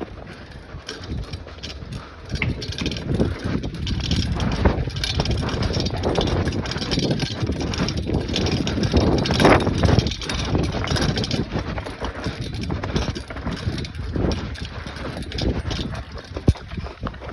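Bicycle being ridden on a dirt trail, its parts rattling and clicking, with wind buffeting the microphone. It grows louder about three seconds in and eases off after about ten seconds.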